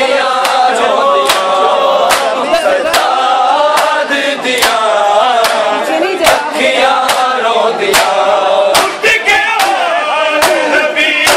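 Men's voices chanting a Punjabi noha, a Shia lament, in chorus, over an even beat of chest-beating (matam) slaps about once every 0.8 s.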